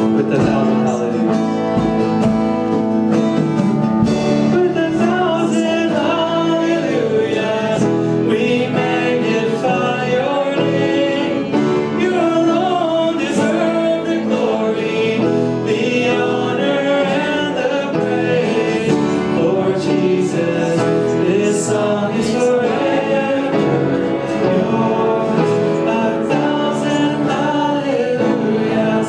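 Worship music: a praise song sung over instrumental backing with guitar, at a steady level.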